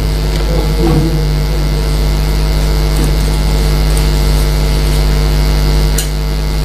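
Steady, loud electrical hum and buzz with a deep low drone, unchanging throughout, with a few faint clicks.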